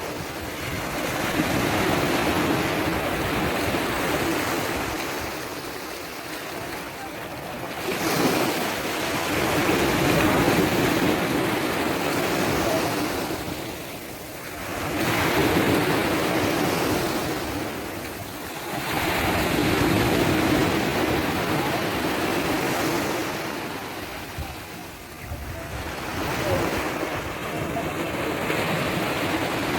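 Waves breaking and washing up a beach, the rush of surf swelling and falling back every several seconds.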